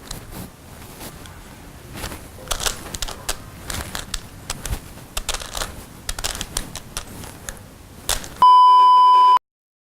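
Scattered irregular clicks and taps, then a loud, steady electronic beep tone about a second long near the end that cuts off abruptly into silence.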